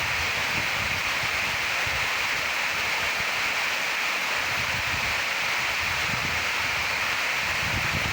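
Waterfall rushing steadily, with irregular low rumbles underneath.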